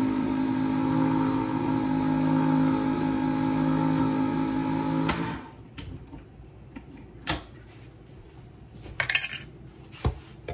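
Steady hum of a small electric motor, cutting off abruptly about five seconds in, followed by a few sharp clicks and a brief metallic clatter.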